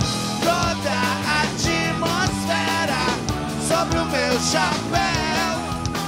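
Rock band playing live: a man singing over electric guitar and drums.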